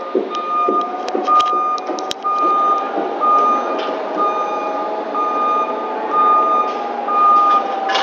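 A truck's reversing alarm beeping steadily at an even pace, about one beep a second, over a running engine.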